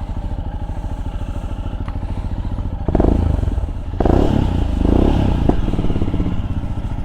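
Royal Enfield Scram 411's single-cylinder engine running at idle through an aftermarket Zard carbon-fibre exhaust, with an even, low thumping beat. It swells louder briefly about three seconds in and again from about four to five and a half seconds in.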